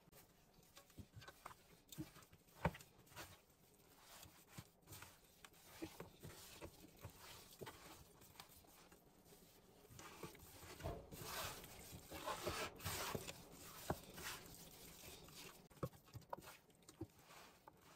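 Faint wet squishing and pattering of raw chicken drumsticks being mixed by a gloved hand with sauce and seasoning in an enamel roasting pan, with scattered sharp clicks.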